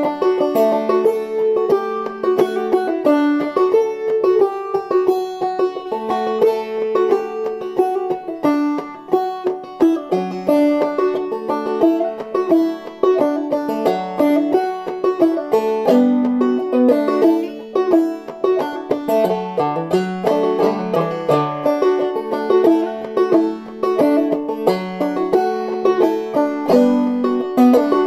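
Solo banjo played clawhammer style in open D tuning: a continuous, lively stream of plucked and brushed notes with a bright, ringing twang.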